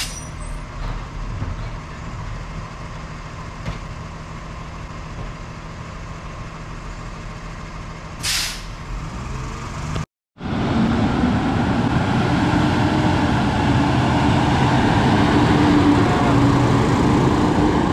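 Freightliner garbage truck's engine running as it pulls away, with a short air-brake hiss about eight seconds in. After a brief cut to silence, the truck's engine idles close by, louder and steady, with a constant hum.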